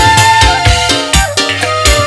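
Live dangdut band playing an instrumental passage: a steady drum beat under a held melody line.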